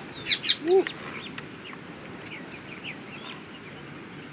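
Birds chirping: a quick burst of high, falling chirps in the first second with a short low call among them, then scattered fainter chirps.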